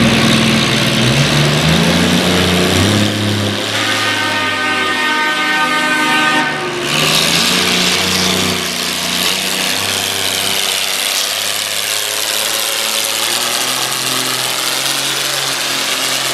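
Antique International Harvester pulling tractor's engine running at high throttle under full load while dragging a weight-transfer sled, its pitch climbing in the first couple of seconds. A high, steady whine rides over the engine from about four to six and a half seconds in, after which the run turns into a rougher, noisier roar.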